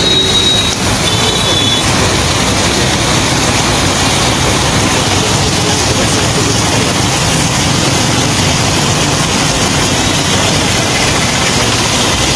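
Heavy rain pouring steadily onto a flooded road, with vehicle engines running as traffic drives through the floodwater.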